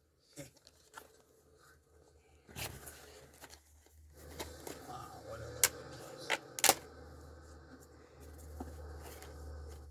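A plastic DVD case and its packaging being handled: light rustling with several sharp plastic clicks, the loudest three a little past the middle. A steady low hum comes in about halfway.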